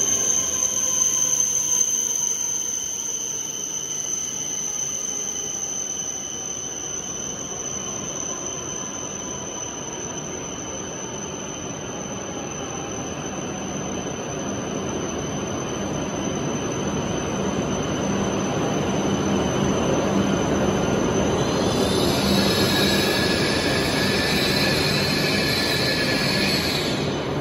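E7/W7 series Shinkansen pulling into a platform and braking: a whine that slowly falls in pitch as the train slows, over a high steady tone and growing running noise. A high brake squeal sets in late on as the train comes to a stop.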